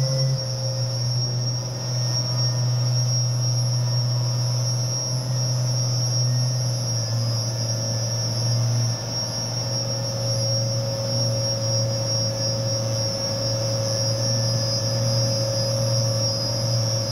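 Sanding machine with a round pad running steadily against a car's front fender, sanding off the clear coat: a steady low hum with a high whine above it.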